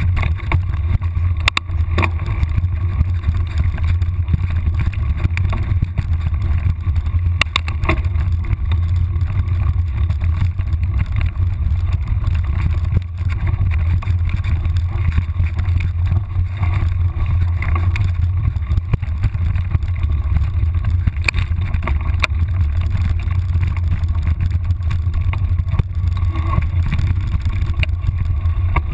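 Steady low wind rumble buffeting an action camera's microphone as it moves quickly along a forest trail, with scattered sharp clicks and knocks from the jolting ride.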